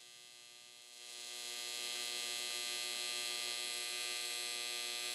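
AC TIG welding arc on 5052 aluminum at about 85 amps, giving a steady electrical buzz. The buzz swells louder about a second in, then holds steady.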